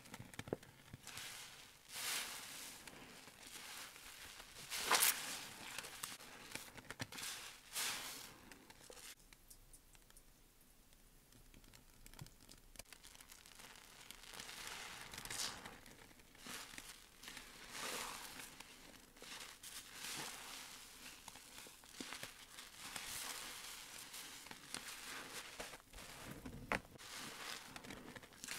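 Wet sponge soaked in foamy green dish soap and glitter, squeezed again and again by hand, each squeeze a separate burst of sudsy squishing, with a quieter lull about a third of the way in.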